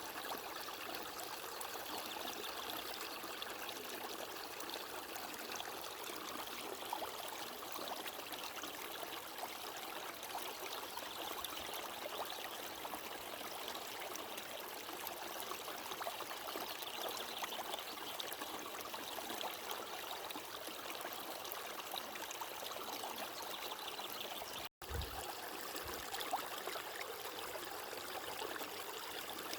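Running water of a small stream, a steady, even rush and trickle. It drops out for a split second near the end.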